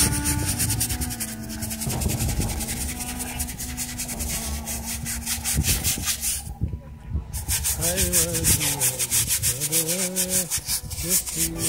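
Stiff hand scrub brush scrubbing a wet, soaped marble headstone in rapid back-and-forth strokes. There is a short break a little past halfway.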